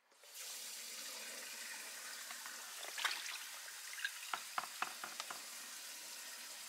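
Kitchen tap running steadily into a sink, with a few light knocks about three seconds in and again between four and five seconds in.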